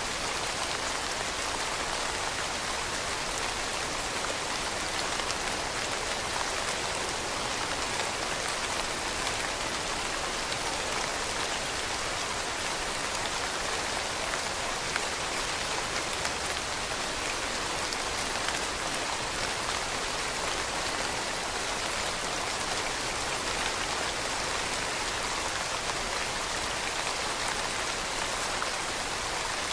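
Steady rain falling on leaves, a dense even patter of drops with no breaks.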